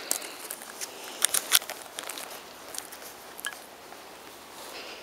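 Footsteps and rustling on grass, with scattered light ticks and two sharp clicks about a second and a half in.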